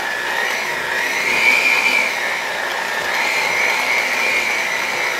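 Electric hand mixer running, its beaters working through a bowl of thick buttercream frosting (butter, shortening and powdered sugar) as it comes together. A steady motor whine that wavers slightly in pitch.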